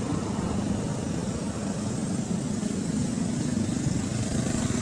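Steady low rumbling outdoor background noise, even throughout, with no calls or knocks standing out.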